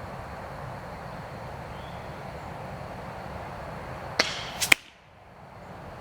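Excalibur Matrix 405 crossbow firing with a single sharp crack, followed about half a second later by two quick sharp knocks over a steady outdoor hiss.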